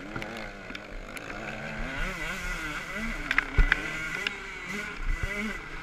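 Motocross bike's engine, heard from a camera mounted on the bike, revving up and down as the rider works the throttle along a dirt track. Several sharp knocks cut through it, the loudest about three and a half seconds in.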